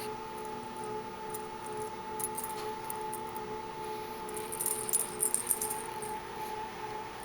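Light metallic jingling and rattling from a kitten's collar as the kitten plays, in scattered small bursts that are busiest about halfway through. A steady hum runs underneath.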